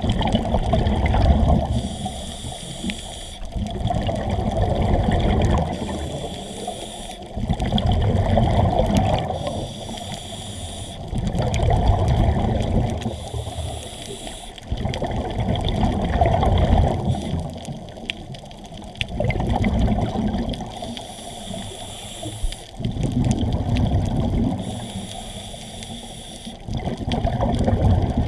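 Scuba diver breathing through a regulator underwater: a short hissing inhale, then a longer bubbling exhale, repeating about every four seconds, around seven breaths in all.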